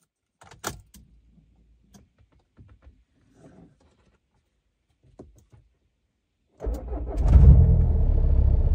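A few faint clicks, then about two-thirds of the way in a 1.9 TDI PD130 diesel engine cranks, catches and settles into a steady idle.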